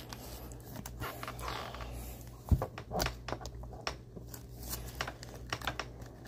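A trading card in a soft plastic sleeve being slid into a rigid clear plastic toploader: light plastic rustling with irregular small clicks and taps, the sharpest about two and a half to three seconds in.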